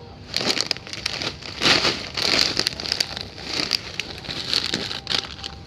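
Plastic snack bags crinkling in irregular bursts as they are handled and squeezed.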